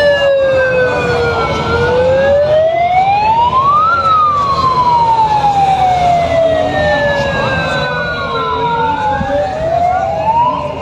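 A siren wailing, its pitch sliding slowly down and then up in long sweeps several seconds apart, with a second siren's sweep overlapping about two-thirds of the way through.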